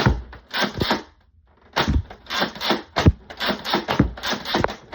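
Nerf Mega Twin Shock dart blaster being primed and fired again and again: a sharp clack, then a short noisy puff, about every half second, with a pause of about a second early in the run.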